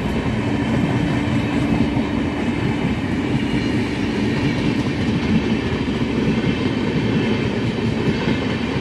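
Passenger train's coaches running past on the track: a loud, steady rumble and rattle of steel wheels on the rails.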